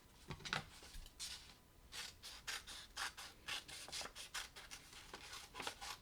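Scissors snipping through folded paper in a run of short cuts, about three a second, as two fin shapes are cut out.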